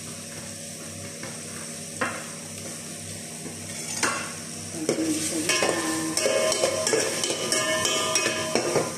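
Chopped garlic and onion sizzling in a stainless steel pot, with a knock about two seconds in and another at four. From about five seconds a metal spoon stirs and scrapes against the pot, clattering repeatedly and squealing, until just before the end.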